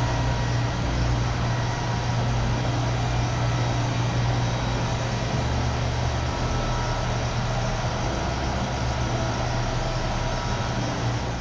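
Steady machine noise with a constant low hum.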